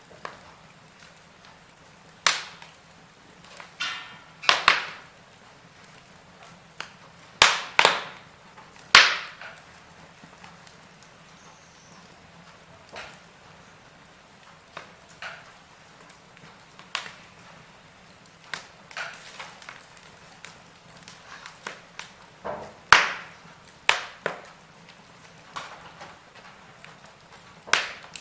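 Wood fire in a fireplace crackling: irregular sharp pops and snaps over a low steady hiss, busiest in the first ten seconds and again around the last third, with a sparser spell in between.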